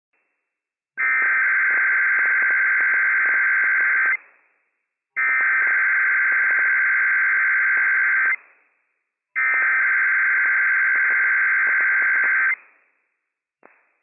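Emergency Alert System SAME header from a NOAA Weather Radio transmitter: three identical bursts of harsh digital data tones, each about three seconds long with a second's gap between, warbling between two pitches. The header encodes a Required Weekly Test for the listed counties.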